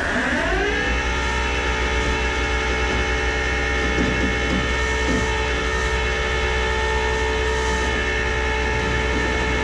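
Flatbed tow truck's hydraulics running under load as the car is pulled onto the bed, a steady droning whine over the engine's low rumble. Its pitch drops sharply at the start and then holds steady.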